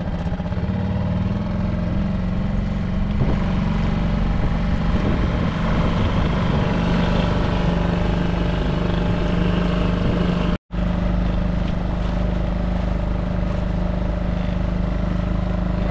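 Outboard motor of an inflatable dinghy running at a steady cruising speed, a constant drone that breaks off for a moment about two-thirds of the way through.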